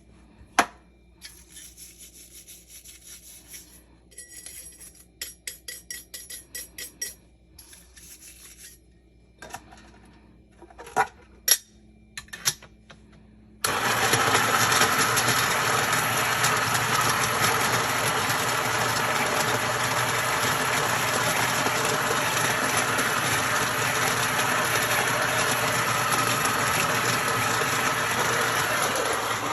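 Scattered clicks and light clattering of coffee gear being handled, then about fourteen seconds in a Niche Zero conical burr grinder starts abruptly and runs steadily, grinding coffee beans.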